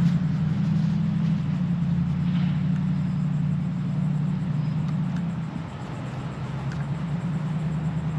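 A nearby engine running at a steady idle: a low, even hum that eases off slightly about two-thirds of the way through.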